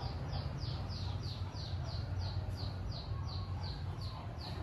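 A bird calling in a fast, even series of short high chirps, each falling in pitch, about three a second, over a steady low hum.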